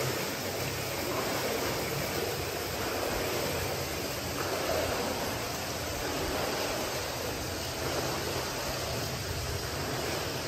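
Creek water running through a cave: a steady, even rushing sound.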